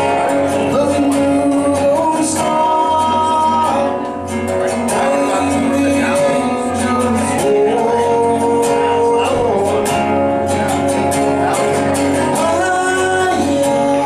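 Live acoustic song: guitar accompaniment under a lead melody in long held notes that slide from pitch to pitch, with no words.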